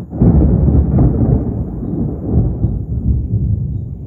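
Thunder: a sudden loud clap about a quarter second in, then a rolling rumble that fades away over the next few seconds.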